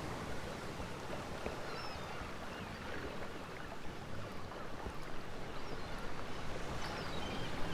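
Harbourside ambience: a steady wash of wind and water, with a few faint, short high chirps through it.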